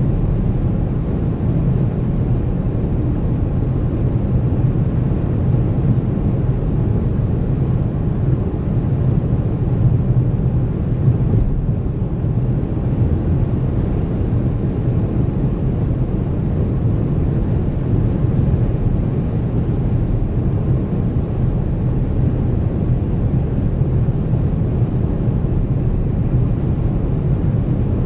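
A 2014 Dodge Charger Pursuit being driven, giving a steady low rumble of road, tyre and drivetrain noise. This is the setting in which the owner hears a light chattering from the front passenger-side suspension, which gets worse with speed.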